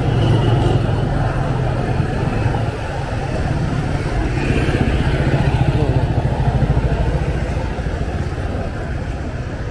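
Motorbike engine idling close by: a steady low hum that grows a little louder around the middle.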